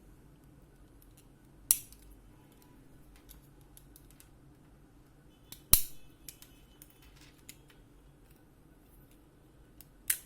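Sharp plastic clicks and snaps as the back cover of a small digital hygrometer's plastic case is pried open: three loud clicks about four seconds apart, the middle one the loudest, with faint small ticks of handling between.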